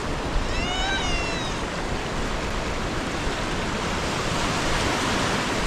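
Steady rush of surf and wind on the beach. About half a second in comes one brief, high, slightly wavering cry lasting about a second.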